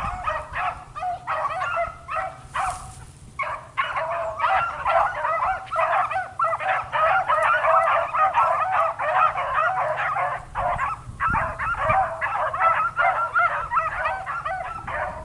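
Pack of beagles baying together, a steady chorus of overlapping voices with a brief lull about three seconds in: hounds in full cry running a rabbit's scent trail.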